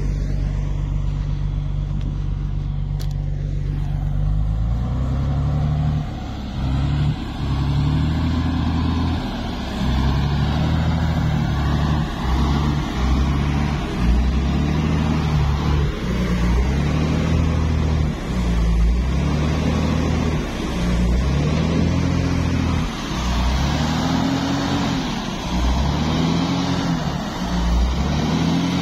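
Engine of a stuck drilling-rig truck running steadily, then revving up and down over and over, about once every second and a half, as the truck tries to pull its wheels out of soft sand.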